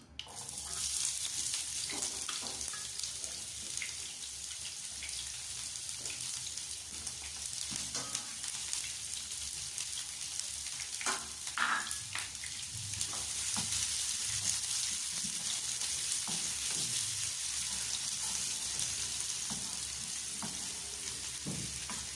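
Vegetables and rice frying in oil in a non-stick frying pan: a steady sizzling hiss. A wooden spatula scrapes and knocks against the pan while stirring, with a couple of louder knocks about halfway through.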